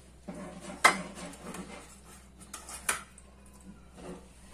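A metal utensil scraping and clinking against a pot and serving dish as the stew is dished up. Two sharp clinks stand out, about a second in and near three seconds, with lighter scrapes and ticks around them.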